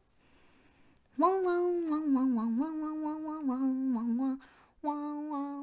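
A woman's voice humming a tune in held notes that step up and down, starting about a second in, with a brief pause near the end.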